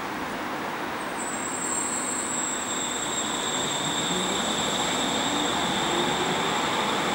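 Berlin U-Bahn small-profile electric train at the platform, its drive whining. A high steady whine starts about a second in and is joined by a second, lower whine. From about four seconds in a low tone rises in pitch as the motors spin up to pull away.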